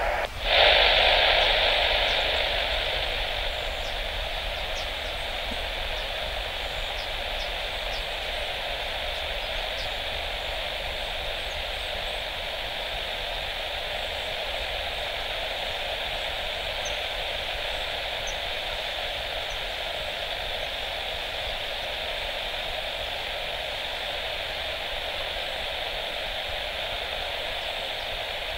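Airband radio receiver hissing with static between air traffic control transmissions. A steady band of hiss that comes up with a click and a louder burst as the last transmission ends, then settles to an even level.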